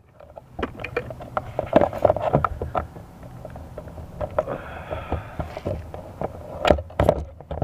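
Shoes scuffing and stepping on concrete right beside a drone's ground-level camera, with irregular knocks and rubbing as a hand handles the DJI Phantom quadcopter the camera is mounted on.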